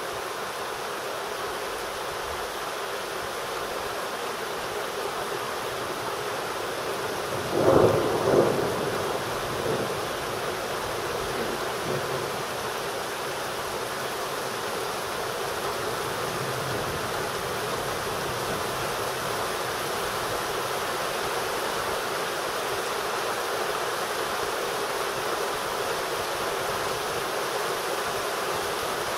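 Steady rain falling throughout, with a clap of thunder about eight seconds in: two sharp cracks close together, then a rumble that dies away over the next few seconds.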